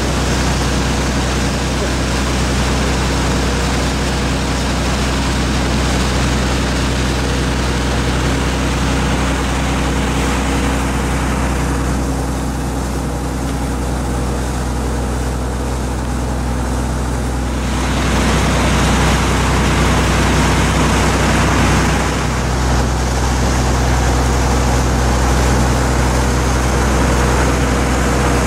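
Ship's engines running steadily under way, a deep even hum, with the rush of the churning wake at the stern; the water's hiss drops back for a few seconds midway, then returns.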